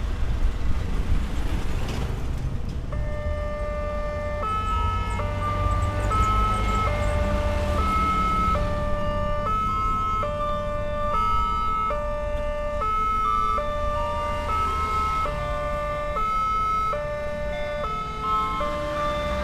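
Railway level-crossing warning alarm, an electronic signal alternating between a high and a low tone, each held under a second, starting about three seconds in. It signals an approaching train while the barrier comes down. Motorcycles and a truck rumble past at the start.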